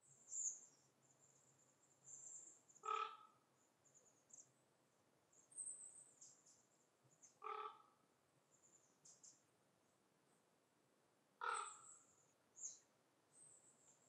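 Faint forest birdsong: thin, high chirps come and go throughout. Three short, lower calls sound at even spacing, about four seconds apart.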